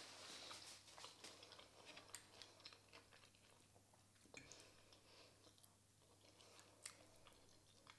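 Faint chewing of soft food, mashed potatoes and chicken chop, with scattered light clicks of a metal fork against a ceramic plate.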